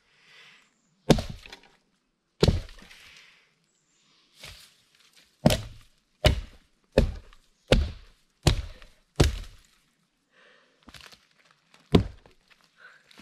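Hatchet chopping into a fallen log: about ten sharp blows, with a quick run of six roughly three-quarters of a second apart in the middle.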